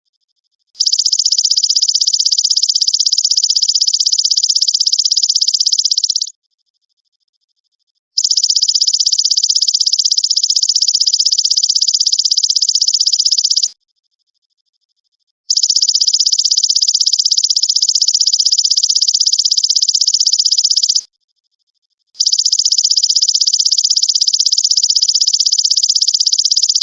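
Belalang emas (golden grasshopper) stridulating: four long bouts of a rapid, high-pitched buzzing trill, each about five and a half seconds, with pauses of about two seconds between them.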